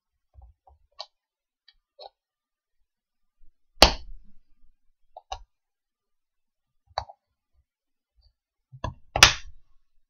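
Plastic case of a Dell 90W laptop AC adapter being prised apart along its glued seam: scattered small clicks and two loud sharp cracks, about four seconds in and near the end, as the seam gives way.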